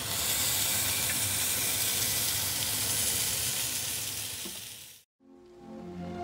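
Food sizzling in a hot frying pan, a steady frying hiss that fades and cuts off about five seconds in. Soft instrumental music begins just after.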